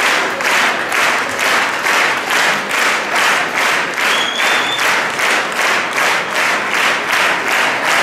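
Crowd clapping together in a steady rhythm, about two to three claps a second.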